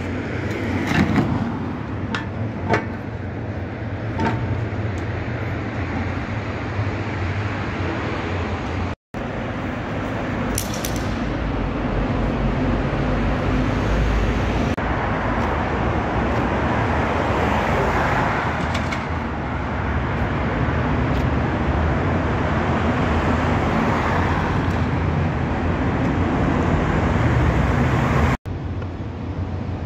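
Road traffic running through a tunnel: a steady rush of passing cars, swelling as vehicles go by. A few sharp metallic clicks come in the first few seconds.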